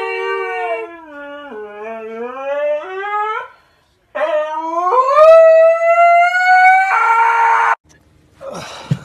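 Husky howling: a long wavering howl that dips in pitch and then climbs, a short pause, then a second howl that rises steadily, turns rough and cuts off abruptly about eight seconds in. A brief scuffling noise follows near the end.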